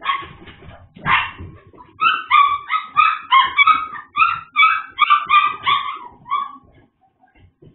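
A puppy yipping: two sharp noises at the start, then a quick run of short, high-pitched yips, about three a second, that stops a little over a second before the end.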